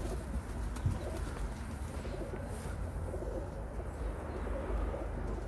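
Pigeons cooing over a steady low rumble.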